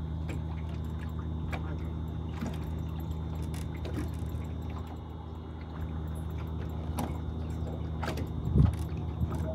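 A small fishing boat's engine idling steadily, with light clicks and rattles of fishing tackle and a single low thump near the end.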